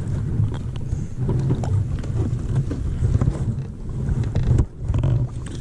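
Wind buffeting the microphone: a steady low rumble that dips briefly near the end.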